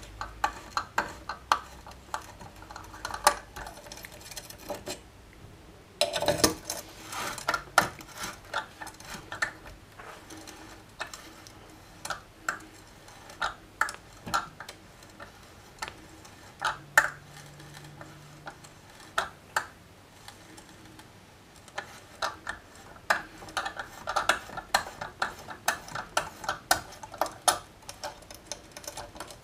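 Irregular sharp metal clicks and clinks from a 5/16-18 bottoming tap in a hand tap holder, turned back and forth in the steel guide bushing of a ski-binding jig while cutting threads for insert holes. There is a short pause about five seconds in.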